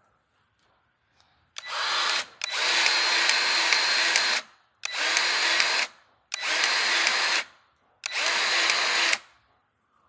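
Battery-powered grease gun motor running in five short bursts of one to two seconds, pumping grease into a Kubota U27 mini excavator's zerk fitting. The fitting takes a lot of grease to fill.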